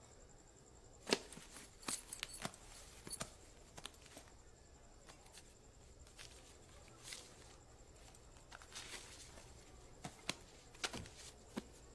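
Quiet, scattered rustles and small clicks of paper being handled: a restaurant bill folder opened and banknotes pulled out.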